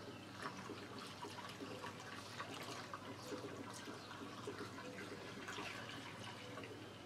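Petrol trickling faintly through a spout into a plastic jug, topping up the oil already in it to make two-stroke mix.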